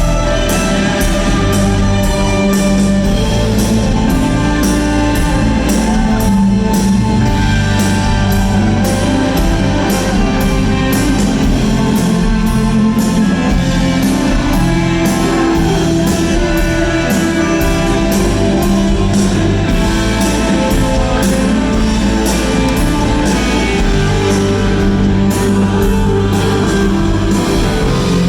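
Live electric rock band playing loudly: electric guitars over bass and a steady drum beat, in an instrumental stretch with little or no singing.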